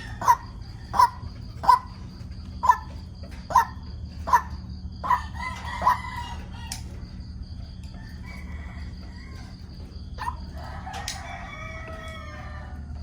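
White-breasted waterhen calling: a run of short, loud, repeated calls about one a second, then quieter, jumbled calls in the second half. A steady low hum runs underneath.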